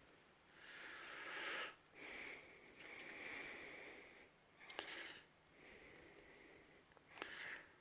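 Faint breathing close to the microphone, several breaths of about a second each, with two sharp clicks, one near the middle and one near the end.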